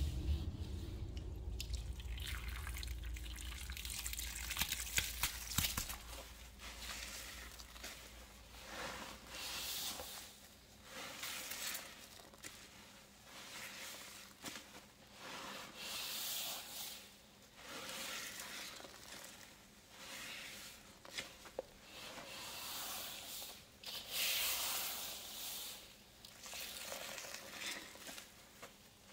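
Hands squeezing a wet paste of cleaning powder soaked in pine liquid cleaner, giving wet, crackly squishes that swell and fade every couple of seconds. A low rumble runs under the first few seconds.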